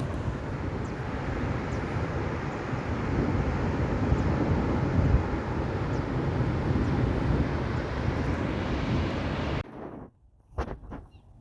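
Steady rushing wind noise on the microphone outdoors. It cuts off abruptly near the end and is followed by a few faint clicks and high chirps.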